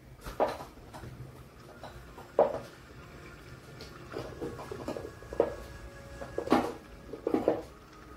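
Tomato paste and olive oil heating in a small stainless-steel pot, spitting with a handful of irregular sharp pops as it comes up to the boil.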